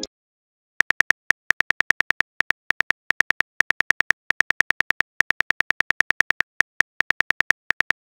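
Phone-keyboard typing sound effect of a texting app: a quick run of short, sharp clicks, one per letter, about eight a second with brief gaps between words, starting about a second in as a message is typed out.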